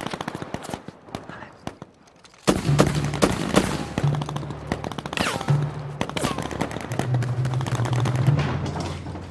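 Rapid machine-gun and rifle fire in a street battle: a stretch of quick shots, then heavier, louder firing from about two and a half seconds in, with a low steady drone underneath.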